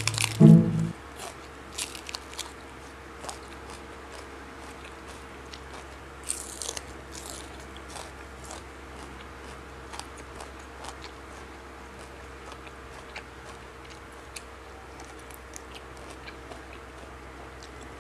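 A person biting and chewing crisp raw vegetables close to the microphone: scattered crunches and wet chewing clicks, with a busier run of crunching about six to seven seconds in.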